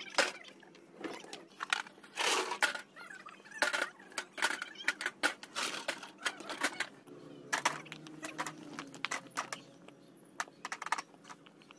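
Old fired bricks clinking and knocking against each other as they are handled and set down by hand, a run of sharp, irregular clacks.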